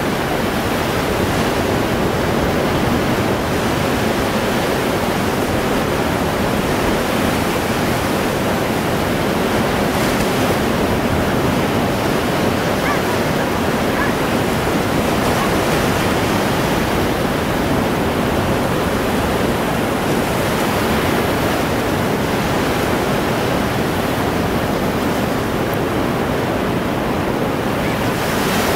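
Baltic Sea waves breaking on the shore: a steady, continuous rush of surf.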